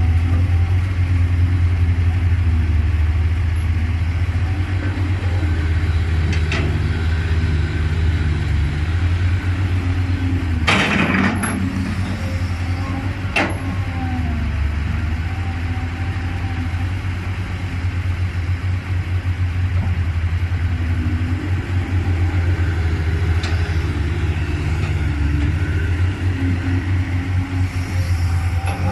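Caterpillar 320C excavator's diesel engine running steadily under working load, with two sharp metallic knocks about eleven and thirteen seconds in.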